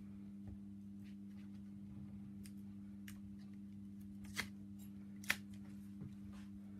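Faint crackling and ticking of tape backing being peeled off double-sided tape strips on chipboard, with two sharper snaps about four and a half and five and a half seconds in. A steady low hum runs underneath.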